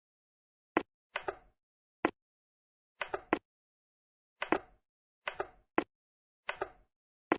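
Brick-built toy train rolling on plastic track, its wheels giving sharp plastic clicks and knocks over the rail joints, some in quick pairs, at irregular gaps with silence in between.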